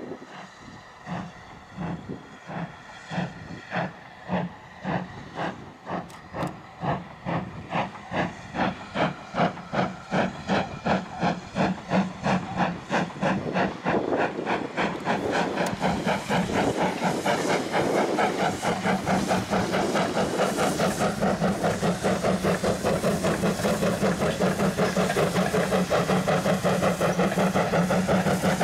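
GWR pannier tank steam locomotive No. 1501 working a train, its exhaust chuffing in regular beats. The beats grow louder and quicken steadily as the engine picks up speed, with a hiss of steam behind them.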